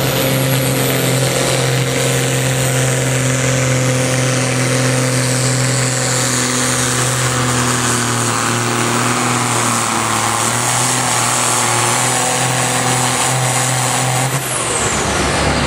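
A red International pulling tractor's diesel engine runs flat out under heavy load, holding a steady pitch with a loud high hiss as it drags the weight sled. About fourteen seconds in the throttle comes off: the engine drops away and a high whine falls in pitch.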